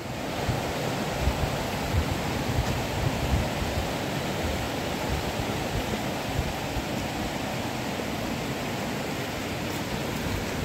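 Steady rushing outdoor noise, with wind buffeting the microphone in low gusts.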